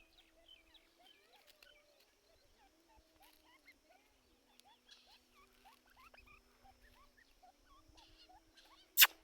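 A teetar (francolin) making soft, faint chirping notes, then near the end two loud, sharp, shrill calls in quick succession: the start of its loud calling bout.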